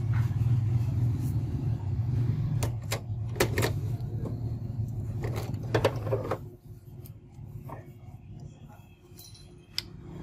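Canon iP2770 inkjet printer mechanism running with a steady low hum that stops about six seconds in. Sharp plastic clicks and taps come from an ink cartridge being handled.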